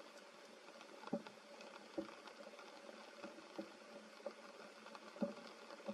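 Light rain pattering on forest leaves, with several louder single drops striking close by, about a second apart, over a faint steady hum.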